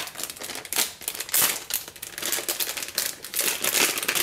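Parts packaging being torn open and crinkled by hand: a dense, irregular run of crackles and rustles.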